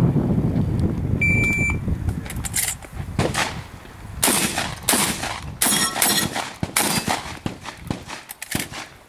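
Wind buffeting the microphone, then a short, steady high electronic beep from a shot timer about a second in, signalling the start. A string of about ten shotgun shots follows, roughly one or two a second, with short gaps where the shooter moves.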